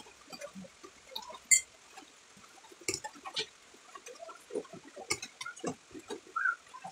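Close-up eating sounds: irregular wet chewing and lip smacking, with the clicks of a metal fork against a plate; the loudest is a sharp click about a second and a half in.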